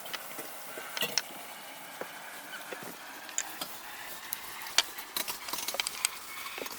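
Light clicks and taps of a baby being spoon-fed baby food, scattered through, with a quick run of small clicks about five seconds in.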